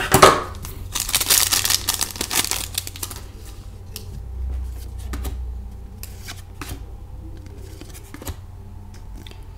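A hockey-card pack wrapper crinkling and tearing as the pack is opened, densest in the first three seconds. Then scattered light ticks and taps as the cards are slid out and handled.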